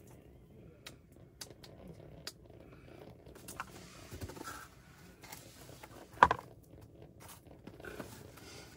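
Small clicks and rustles from handling small winter ice-fishing rods over the holes, over a low steady rumble, with one sharp knock about six seconds in.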